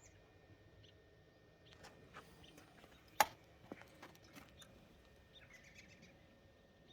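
Faint scattered clicks and taps, with one sharp click about three seconds in, and robins chirping faintly near the end.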